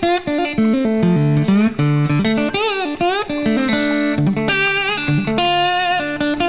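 Background music: an instrumental guitar solo, a run of single notes with pitch bends over a band.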